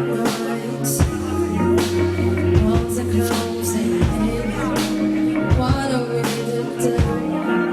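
A band playing live: drum hits and cymbals over held bass notes and sustained chords that change every second or two.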